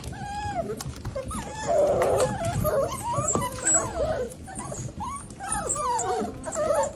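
A litter of six-week-old golden retriever puppies whining and yipping together, many high little voices overlapping.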